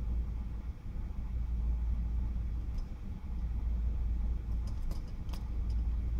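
Steady low-pitched hum with a handful of small, sharp clicks from about three to five and a half seconds in, typical of a soldering iron and tools touching a pickup's circuit board.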